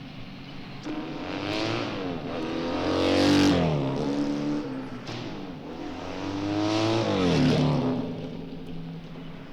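Two motorcycles passing fast, one after the other, about four seconds apart. Each engine note rises as it approaches and drops as it goes by.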